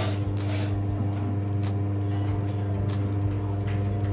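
A steady low mechanical hum with a few constant pitched tones, unchanging throughout.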